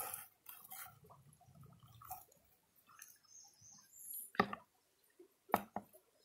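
Quiet handling of plastic gold-panning gear: faint drips and small wet sounds, then a few sharp knocks about four and a half and five and a half seconds in as a plastic bucket is tipped out.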